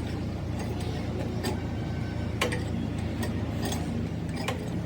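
A steady low engine or machine hum, with sharp taps or clicks at irregular intervals, roughly one a second.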